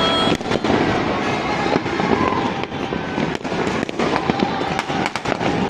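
Many fireworks and firecrackers going off at once: a dense, continuous crackle with frequent sharp bangs.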